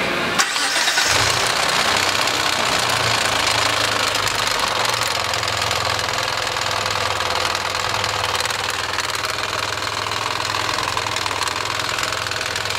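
Dodge Stealth twin-turbo 3.0 L V6 starting about half a second in, then idling steadily with a fast ticking rattle over the engine note. The knocking rattle is what the owner puts down to a loose timing belt.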